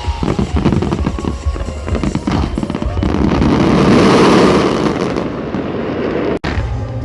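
Aerial fireworks going off in rapid succession, sharp bangs and crackles, building to a dense swell of crackling about halfway through; the sound cuts out for an instant near the end.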